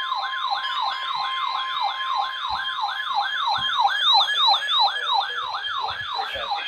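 Weather alert radio's electronic siren alarm sounding for a warning: a falling siren sweep repeating about three times a second. A steady high alert tone runs under it and stops a little past halfway.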